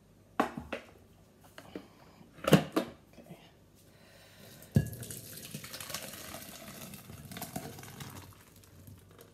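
Clunks and knocks of the Thermomix TM6's stainless-steel mixing bowl as it is lifted out of its base, then chicken noodle soup pouring from the bowl into a glass jug for about four seconds.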